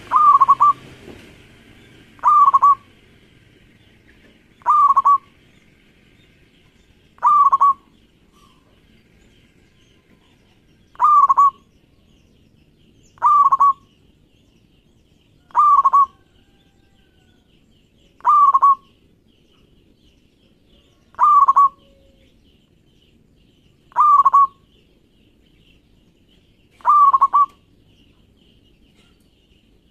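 Local zebra dove (perkutut) singing: a short, rolling coo repeated eleven times, about every two and a half seconds with one longer pause. It is the kind of vigorous song played to prompt other perkutut to sing.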